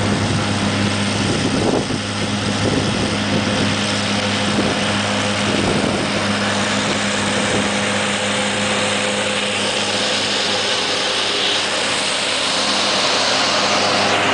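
Pixall seed corn picker running steadily while harvesting: a constant engine drone with a low hum and broad mechanical rushing from the machine.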